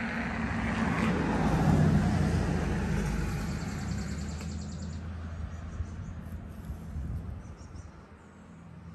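A motor vehicle driving past: engine and tyre noise grows to a peak about two seconds in, then fades away.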